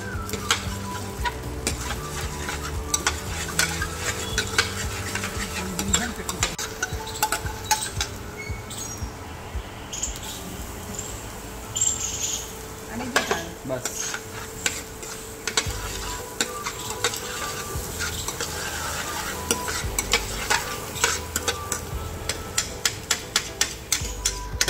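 A steel ladle stirring and scraping ginger, garlic and chillies frying in hot oil in a stainless steel pan: a steady sizzle under quick metal-on-metal clicks. About halfway through, chopped green chillies and spring onions are tipped into the pan.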